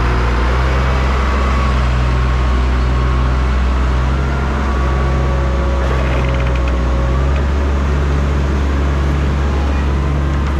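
Compact track loader's diesel engine running steadily, with a low hum and a faint pulse repeating a little under once a second; the engine note shifts slightly about seven seconds in.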